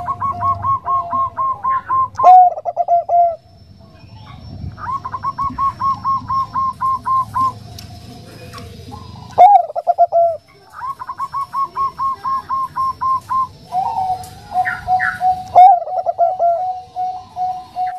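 Bangkok-type zebra dove (perkutut) singing: three phrases, each a run of quick, even coos at about five a second that ends in a few louder, lower, drawn-out coos. The last phrase runs on into a longer string of coos.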